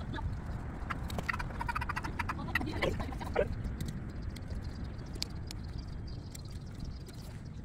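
Pruning shears snipping watermelon vines and leaves rustling as the shoots are pulled away, in short sharp clicks, over a steady low rumble of wind on the microphone. A few short animal calls come between about one and three and a half seconds in.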